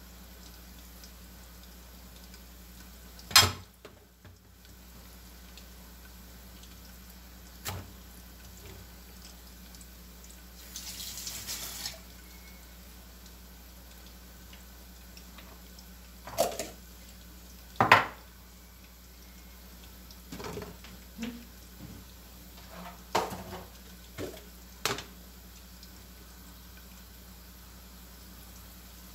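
Kitchen clatter of cookware and utensils: a pot lid, pans and bowls knocking on the stone counter and stovetop, with a loud clank a few seconds in and scattered smaller knocks later. A short rush of running water from the sink tap comes about eleven seconds in.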